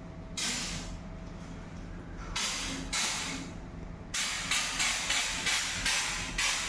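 Aerosol can of white contrast paint spraying onto a weld specimen for magnetic particle testing: a few longer hissing bursts, then short puffs about three times a second from about four seconds in.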